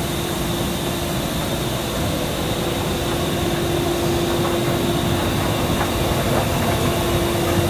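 Running machinery of an LDPE film recycling and pelletizing line: a steady mechanical drone with a constant hum that does not change.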